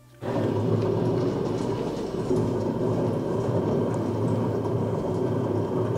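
An Escher spiral dough mixer starts up suddenly about a quarter second in, then runs steadily with a rumbling hum as its hook kneads bread dough in the steel bowl.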